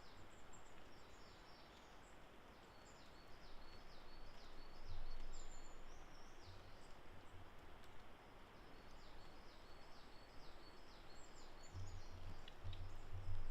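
Woodland ambience: a steady hiss with a quick, near-continuous run of thin, high, repeated notes from small birds in the distance. A few low rumbles come about five seconds in and again near the end.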